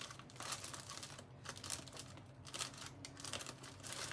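Thin clear plastic bag crinkling in the hands with irregular crackles as it is closed up, likely around bread to keep it from drying out.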